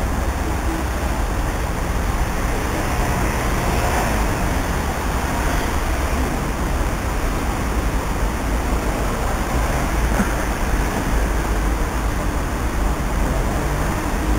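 Steady low rumble with a hiss of railway station noise, with trains at the far end of the tracks. No single event stands out.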